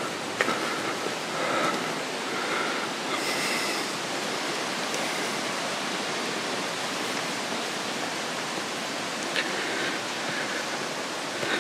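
Steady rush of running water at a spring-fed stone fountain, heard up close.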